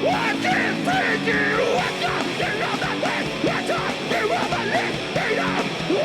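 Rock band playing live and loud, getting louder right at the start, with bending melodic lines over a dense band sound.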